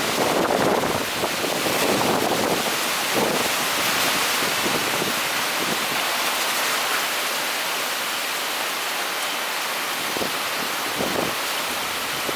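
Typhoon wind and heavy rain: a steady hiss of rain and wind, with gusts buffeting the microphone near the start and again about eleven seconds in.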